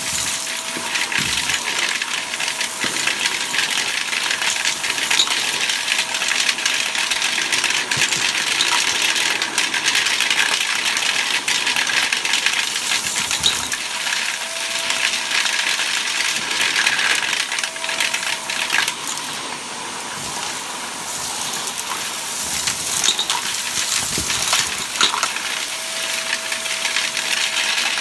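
Canister vacuum cleaner running, its wand sucking up dirt and small crunchy debris from a shag rug, with a constant rattle and clicking of grit through the wand and hose.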